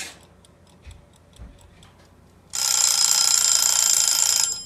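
Mechanical kitchen dial timer ticking fast and faintly, then its bell ringing loudly for about two seconds as it reaches zero, signalling that the baking time is up. The ringing cuts off abruptly.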